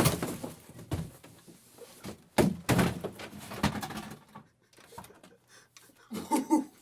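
A few dull thumps and knocks in a small room, the loudest a pair about two and a half seconds in, with a short vocal sound near the end.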